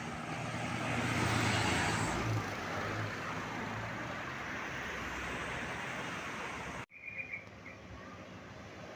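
Road traffic with a heavy vehicle's engine passing close, loudest a second or two in. About seven seconds in the sound cuts off abruptly to quieter traffic, with a short high chirp.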